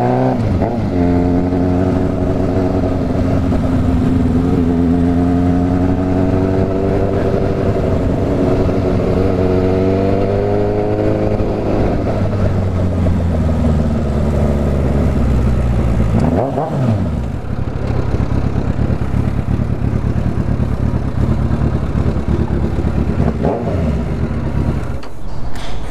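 Suzuki GSX750F's inline-four engine with an open exhaust, heard while riding: it pulls through a gear with its pitch slowly climbing for about ten seconds, then drops off as the bike slows. Two short throttle blips follow later as the bike rolls into a parking spot.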